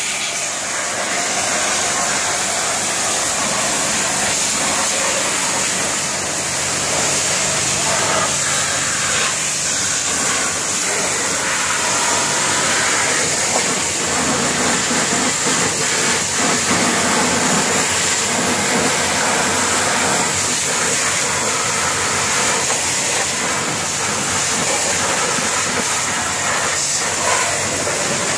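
High-pressure washer jet spraying onto a backhoe loader's steel arm and body: a steady hiss of water, with a low steady hum underneath.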